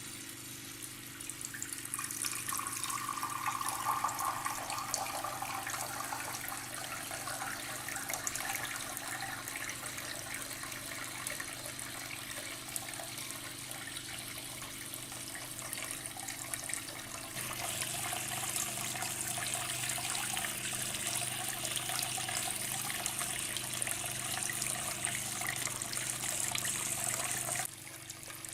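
Water from a small homemade tabletop fountain trickling and splashing steadily over a faint steady hum. It grows louder and brighter a little past halfway and drops back just before the end.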